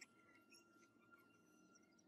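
Near silence: one brief click right at the start, from small metal parts of a jigsaw gear housing being handled, then only a few very faint ticks.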